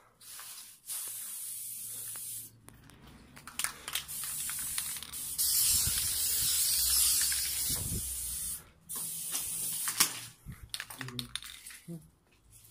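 Aerosol spray-paint can spraying in several bursts of hiss, the longest and loudest in the middle, with short pauses between.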